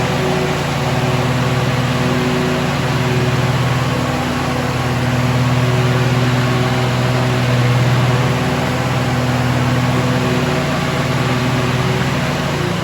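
Two-cylinder Kawasaki FR691V engine of a Hustler Raptor SDX 54 zero-turn mower running steadily, with only slight rises and falls in level.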